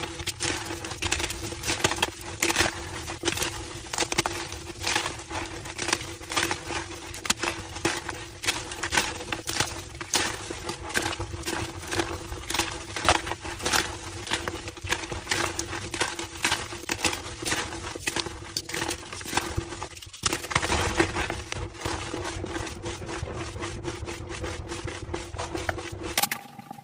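Homemade gym chalk slabs crushed by hand, giving a steady run of crisp squeaky crunches, about two or three a second, with a brief pause near the end.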